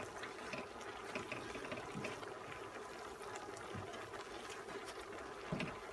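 Chopped affang leaves pushed and scraped by hand across a stainless steel tray, soft rustling and scraping with scattered light ticks.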